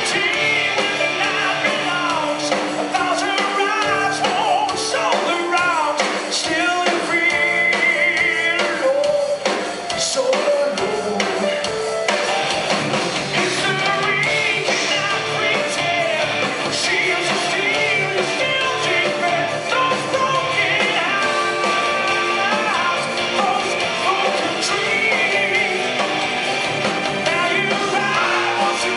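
Rock band playing live: lead vocals over electric guitars, bass guitar and drums, steady and loud throughout.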